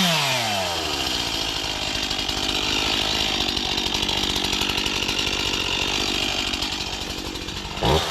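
Stihl two-stroke chainsaw coming down from a high rev to idle in the first second, idling steadily for several seconds, then revving up sharply again near the end.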